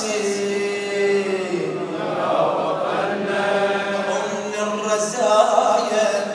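A man chanting an Arabic elegy in long, held melodic lines, his voice carried over a public-address system.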